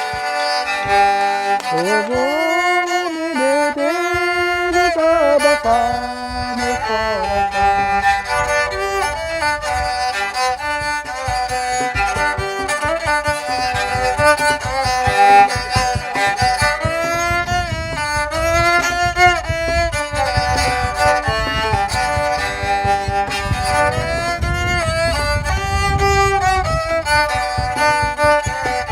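Handmade rabeca, a Brazilian folk fiddle, bowed in a lively tune with frequent sliding notes. A low rhythmic thumping joins beneath it about six seconds in.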